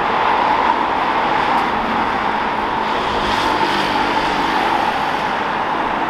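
Steady road traffic noise, with a car going by on the road.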